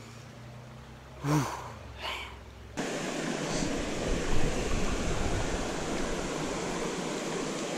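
Steady rush of flowing creek water, cutting in abruptly a little under three seconds in after a quieter stretch with a couple of brief faint sounds.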